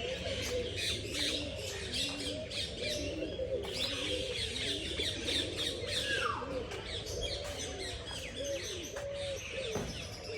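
A crowd of caged birds calling at once: pigeons cooing low underneath a dense chatter of small birds chirping, with one falling whistle about six seconds in.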